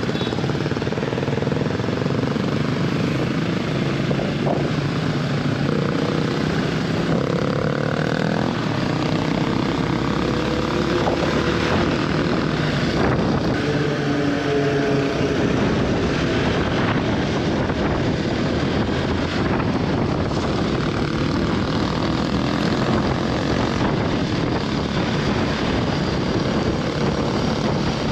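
Hero XPulse 200 4V single-cylinder motorcycle riding along the road: steady engine running under a heavy rush of wind on the microphone, with the engine pitch rising and falling a few times in the first half.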